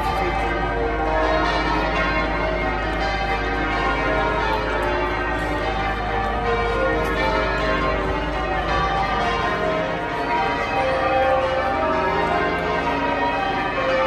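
Change ringing on St Paul's Cathedral's ring of twelve bells: a continuous, loud peal of many overlapping bell strokes.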